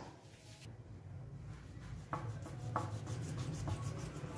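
Knife cutting and scraping through a raw mutton leg in a plastic bowl, with a few light knocks about two and three seconds in, over a low steady hum.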